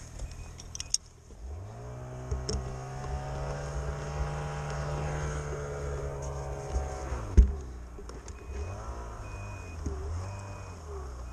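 Snowmobile engine revving up about a second in and held high for around six seconds, then dropping back with a sharp click, followed by a few shorter blips of throttle. A series of short high beeps repeats near the end.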